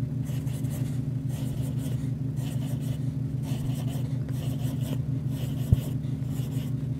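Graphite pencil scratching on drawing paper in short, irregular strokes as it traces small bumpy curves, over a steady low hum. A single brief thump sounds late on.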